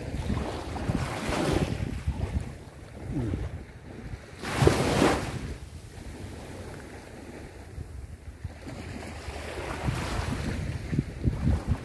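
Small waves washing up and draining back on a sandy beach, with wind buffeting the microphone. One wash swells loudest about four to five seconds in.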